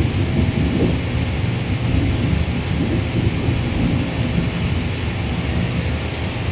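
Airfield ambience: a steady low rumble with an even hiss above it, unchanging throughout.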